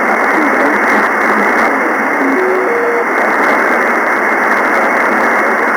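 Single-sideband receiver hiss from the FO-29 satellite's linear transponder downlink, confined to a narrow voice band. About two seconds in, a brief steady carrier tone steps up in pitch three times as the receiver is retuned.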